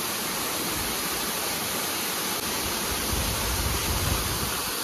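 Waterfall pouring onto rocks and into a shallow pool: a steady, even rush of falling water. A low rumble swells briefly about three seconds in.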